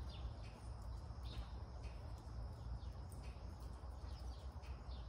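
Small birds chirping in short, repeated downward notes about once a second, over a steady low rumble.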